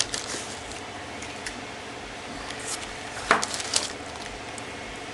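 Parts packaging being handled by hand: scattered light clicks, knocks and rustles, the loudest a little past three seconds in.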